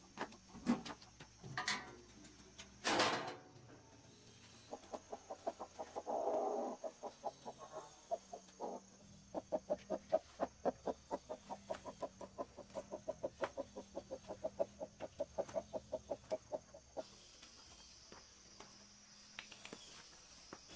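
A farm animal making a long, rapid series of short clucking or grunting calls, about five a second, starting about five seconds in and stopping near the end, after a few sharp knocks at the start.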